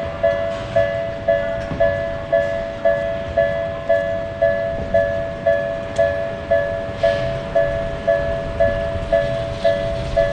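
Japanese railroad-crossing alarm bell ringing its two-tone "kan-kan" strike steadily, about two strikes a second, over a low rumble, signalling that a train is approaching.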